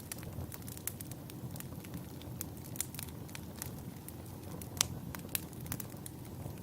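Wood fire burning in a fireplace: burning logs give a steady low rumble, with frequent sharp, irregular crackles and pops. Two louder pops come a little under five seconds in and about half a second later.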